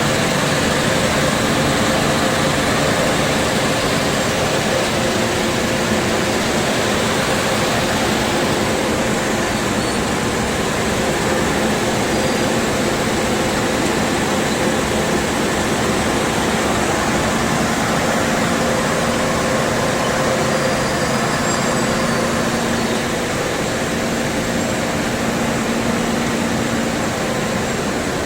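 Breadcrumb extrusion production-line machinery running steadily: a loud, even mechanical noise with a constant hum.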